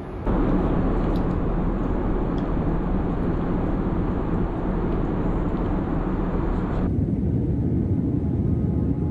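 Steady in-flight cabin noise of a Boeing 787-8 Dreamliner at cruise, an even rushing drone of airflow and engines. It steps louder just after the start and turns duller about seven seconds in, losing its upper hiss.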